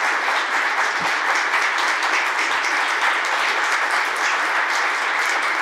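Audience applauding: many people clapping steadily and continuously.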